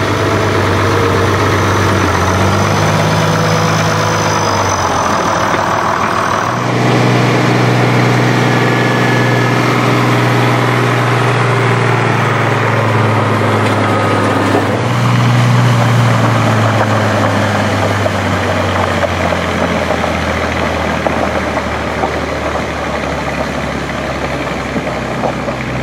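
Vintage farm tractor engines running loud while pulling a weight sled, heard across several abrupt cuts. In the second half the engine note sinks lower as the tractor labours against the sled.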